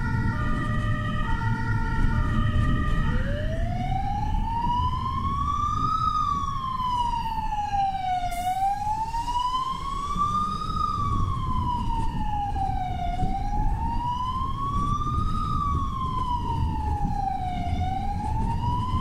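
Emergency vehicle siren, heard over the steady rumble of driving. For the first few seconds it plays a stepped pattern of alternating tones, then it switches to a slow wail that rises and falls about every four to five seconds.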